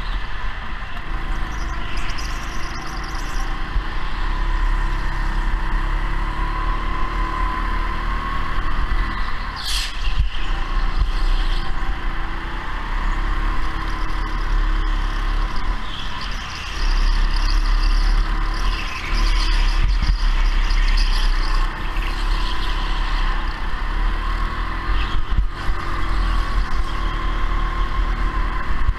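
Go-kart running on track: a loud steady drone whose pitch rises and falls as it speeds up and slows, with a sharp knock about ten seconds in.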